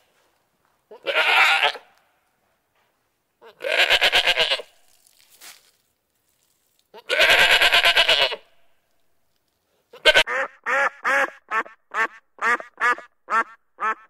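A goat bleating three times, each bleat long and wavering. From about ten seconds in, a quick run of short quacks from a duck follows.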